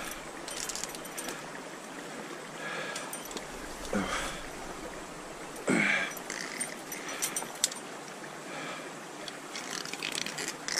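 Steady rush of a small trout stream, with two brief louder sounds about four and six seconds in and scattered light clicks and rustles from handling.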